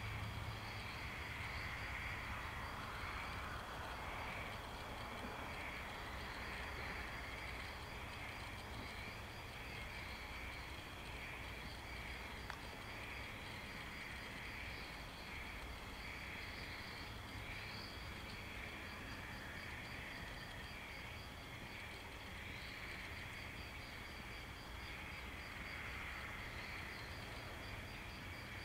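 A chorus of insects chirping steadily, a fast pulsing trill that goes on without a break, with a low hum underneath.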